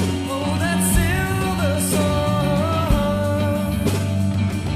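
Rock band music: drums keep a slow, steady beat of about one hit a second under a bass line, with cymbal crashes and a melody that slides between long held notes.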